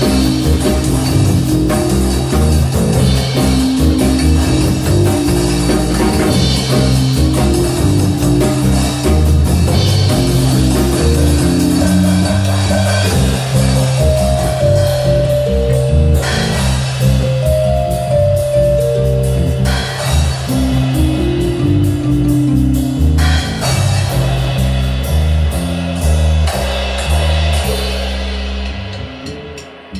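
Rock jam on guitar, bass and drum kit, fading down near the end.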